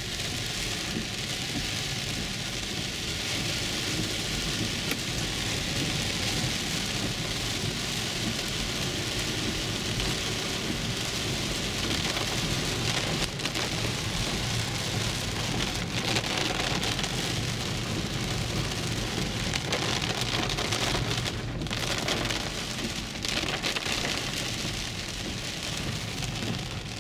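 Heavy rain falling on a car's roof and windshield, heard from inside the car as a steady, even hiss.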